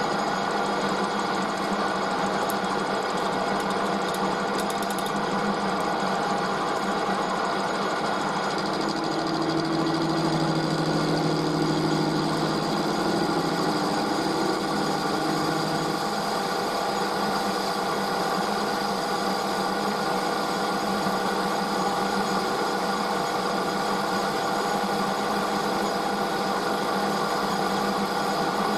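Small metal lathe running steadily, turning an aluminium part. A lower note joins in for several seconds about a third of the way in, then drops away.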